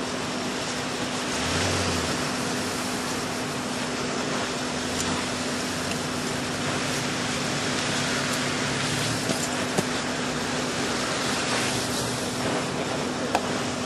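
Steady street noise of road traffic, with a low hum underneath and a couple of sharp clicks near the end.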